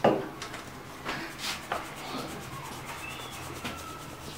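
Maize flour being sifted through a round metal sieve: a sharp knock at the start, then soft rubbing and scraping with a few light taps as the sieve is shaken.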